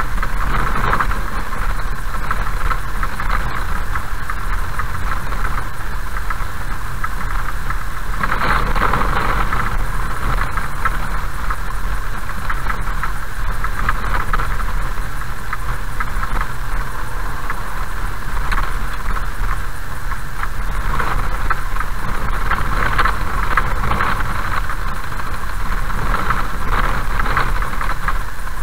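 Car driving on a gravel road at about 35–40 km/h, heard from inside: a steady engine and tyre rumble with an uneven crackle of gravel under the tyres that swells and fades, and a little rattle.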